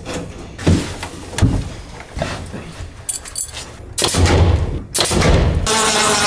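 A few sharp knocks as a window frame is fitted and nailed, then a cordless drill's motor whirring steadily near the end as it drives a screw into a metal hinge.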